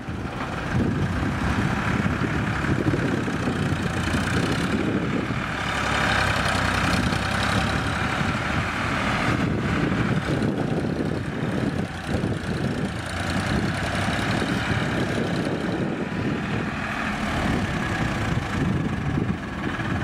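Diesel tractor engine running steadily as the tractor tows a trolley heaped with wet mud.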